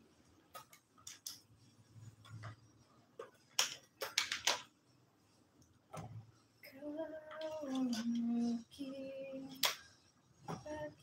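Rustling of plastic wrapping and light clicks as a kitchen knife is handled and slid into its plastic sheath. About seven seconds in, a woman hums a short tune for a few seconds.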